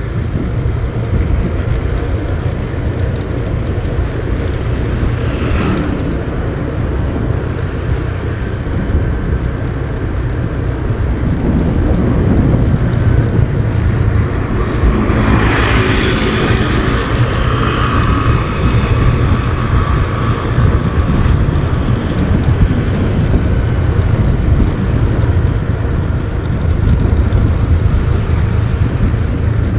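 Motorbike riding along a road: steady low wind rumble on the microphone with the engine running underneath. About halfway through, a louder rush with faint engine tones swells for a few seconds.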